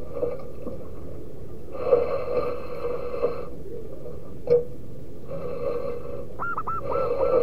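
Zebra doves cooing in bouts of low, steady notes with short pauses between. Near the end comes a quick run of higher dipping notes, and a single click sounds about halfway.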